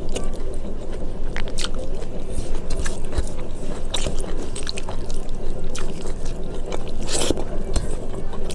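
Close-miked eating sounds: chewing a mouthful of rice and curry, with wet mouth clicks and light scrapes, over a steady low background hum.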